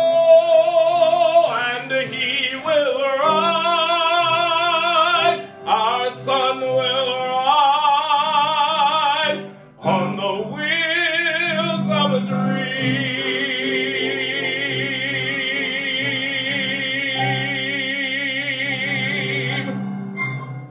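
A man belting the closing phrases of a Broadway show tune in full voice with wide vibrato, over instrumental accompaniment. The final note is held for about eight seconds and cuts off abruptly at the end.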